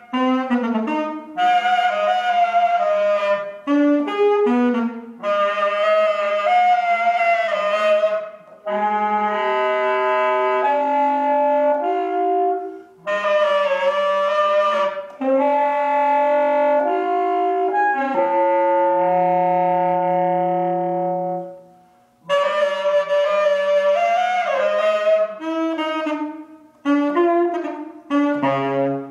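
Solo alto saxophone playing a contemporary concert piece in quick, restless phrases broken by short breaks. About two-thirds of the way through it holds one long low note that fades away before the fast playing starts again.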